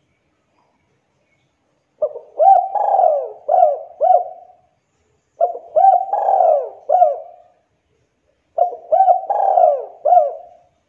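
Spotted dove (tekukur) cooing: three phrases, each of several arching coo notes, about three seconds apart.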